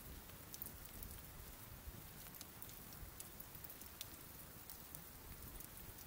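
Wood fire burned down to glowing embers, smoldering and crackling faintly: scattered small ticks and pops, several a second, over a soft hiss.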